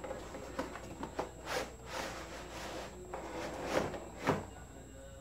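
Cardboard box being opened and handled: cardboard scraping and rustling with light clicks, and two sharper knocks about four seconds in.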